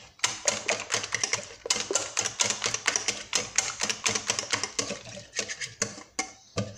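Metal wire whisk beating batter in a glass bowl: rapid, irregular clicking and tapping of the wires against the glass, several strokes a second, with a brief pause near the end.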